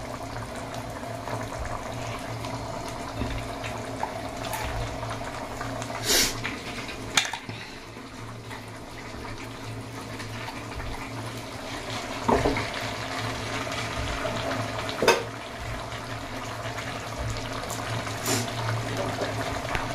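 Rajma gravy bubbling steadily in a kadhai on the stove. Several sharp knocks and scrapes sound against it as a spoon scrapes ground paste out of a steel mixer-grinder jar into the pan.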